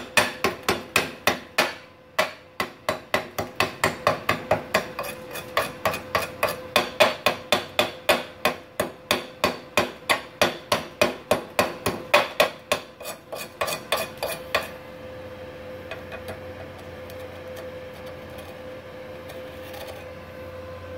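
A hammer striking welded steel plates in quick, even blows, about three a second, with a short pause about two seconds in; the blows stop about two-thirds of the way through, leaving a steady hum.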